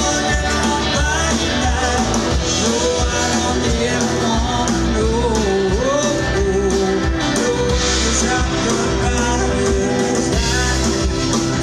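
A live band playing a country song, with drums, bass, guitars and a melody line over a steady beat.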